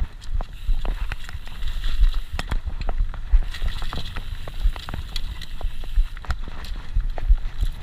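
Mountain bike rattling down a rough dirt singletrack: a constant low rumble with many irregular sharp knocks and clatters as the bike and its chain bounce over bumps.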